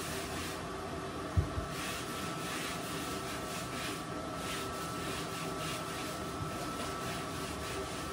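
Chicken drumsticks frying in hot corn oil: a steady sizzling hiss, with one dull thump about a second and a half in.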